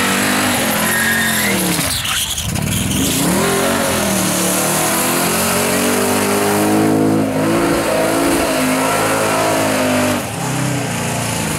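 Holden VH Commodore V8 held at high revs in a burnout, rear tyres spinning with a steady hiss. The revs drop and climb back about two seconds in and dip briefly again near the end.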